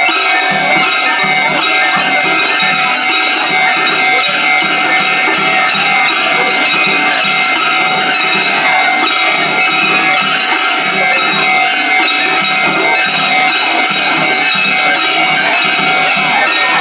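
Japanese railway level-crossing warning bell ringing steadily and repeatedly, with festival music and crowd noise underneath.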